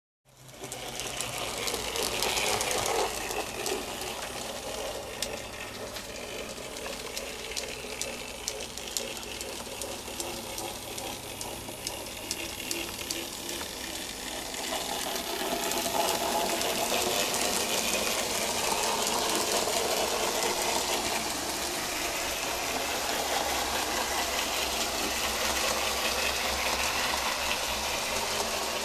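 N gauge Graham Farish Stanier 8F model locomotive running, its small electric motor whirring steadily with a fine rattle of wheels on the track. It gets louder about fifteen seconds in.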